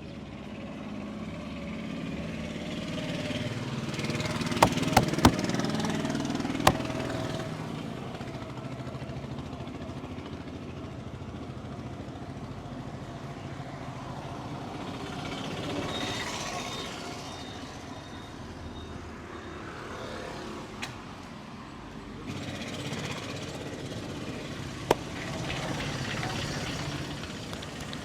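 Street traffic passing, with vehicles swelling and fading several times, and a few sharp clicks, a quick cluster of them about five seconds in and single ones later.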